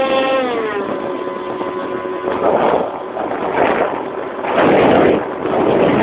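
The Twinstar II model airplane's twin electric motors whine, then drop in pitch as they are throttled back about half a second in and fade out. After that, rushing air noise on the on-board phone's microphone swells in several gusts as the model glides down low over grass, loudest near the end.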